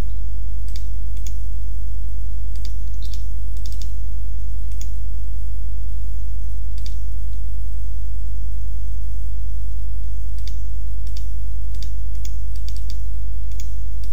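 Irregular clicks of a computer mouse and keyboard, often two or three close together, over a loud steady low hum.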